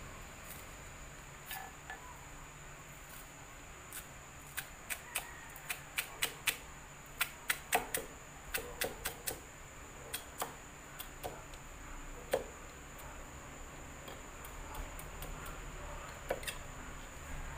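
Kitchen knife chopping green onions on a plastic cutting board: irregular sharp taps of the blade on the board, coming thick and fast between about four and ten seconds in, then only a few scattered taps.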